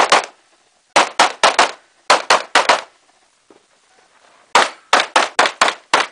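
Handgun shots fired in rapid strings: a shot at the start, about eight more in quick succession over the next two seconds, a pause of about a second and a half, then another fast run of about eight shots near the end.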